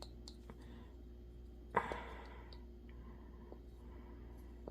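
Faint handling sounds of small parts on a work surface: a few light clicks in the first second, then a short rustling sound just under two seconds in.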